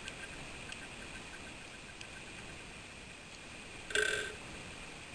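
Faint, even ticking as a screwdriver turns out the small screws holding the cable grip at the base of a three-pin plug, then a short louder rasp about four seconds in.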